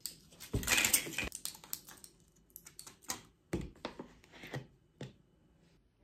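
Foil-backed pill blister packs crackling as tablets are pressed out. A loud crackle comes about half a second in, followed by scattered clicks and short crinkles, with a plastic water bottle being handled near the end.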